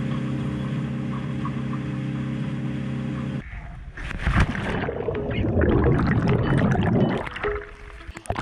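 Dive boat's engine running steadily. About three and a half seconds in, it gives way abruptly to a splash and rushing, bubbling water as a scuba diver back-rolls off the boat into the sea, dying down near the end.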